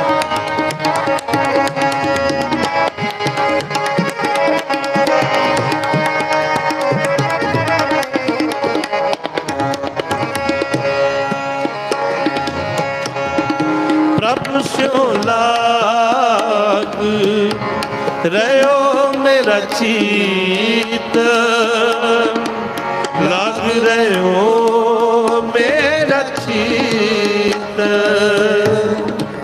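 Sikh kirtan: harmoniums playing held melodic tones with a tabla beating out a rhythm. About halfway through, a man's voice comes in singing over them with wavering, drawn-out notes.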